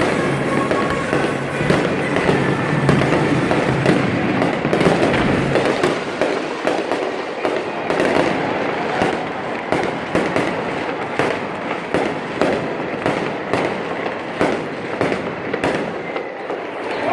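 Fireworks going off in a dense, rapid barrage of bursts and crackles. Music plays under the first few seconds.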